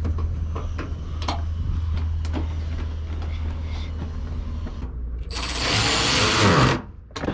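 Bumper bolts being worked with a ratchet: scattered tool clicks, then a loud burst of rapid ratcheting about five seconds in that lasts around a second and a half and stops abruptly.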